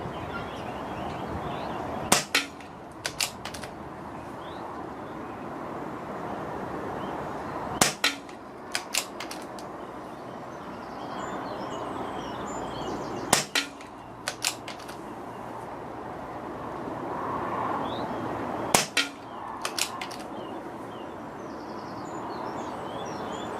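BSA R10 Mark II PCP air rifle firing .177 JSB Hades pellets: four sharp shots about five and a half seconds apart, each followed about a second later by two or three smaller clicks. Steady wind noise fills the gaps between shots.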